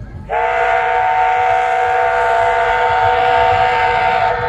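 Steam locomotive whistle blowing one long blast of about four seconds, several notes sounding together as a steady chord, starting suddenly and cutting off.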